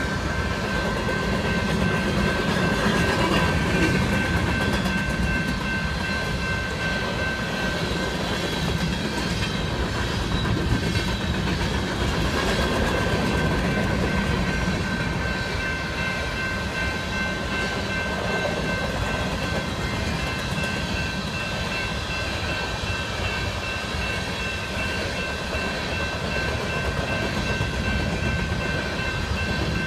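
Long BNSF freight train of covered hopper cars rolling past: a continuous rumble and clatter of wagon wheels on the rails, with a steady high ringing tone over it.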